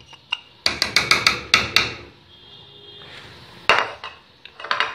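A spoon knocking and scraping against a plate, a quick run of sharp taps, as fried nuts and raisins are pushed off into a pot of rice. One louder knock comes near the end.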